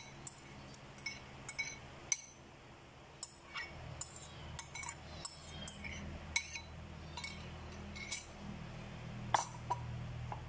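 Spoon and ceramic bowl clinking against a glass blender jar as boiled vegetables are tipped and scraped in: an irregular string of sharp, ringing clinks, about one or two a second.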